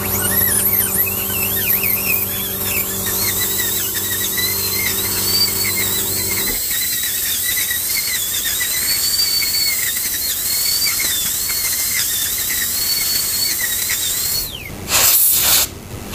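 High-speed dental air-turbine handpiece drilling decay out of a molar, run without its water spray: a high, wavering whine that spins down and stops near the end. A steady low hum sits underneath until about six seconds in, and a short hiss of air follows near the end.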